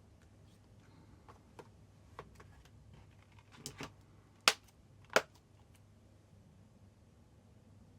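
Small plastic clicks and taps from a Blu-ray case and its discs being handled, building to two sharp snaps about a second apart near the middle.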